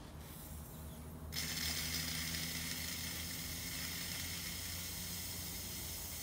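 A steady hiss, starting about a second in, of air blown by mouth into the top hole of a Honda GCV190 pressure washer's fuel tank, forcing leftover gasoline out through the fuel line.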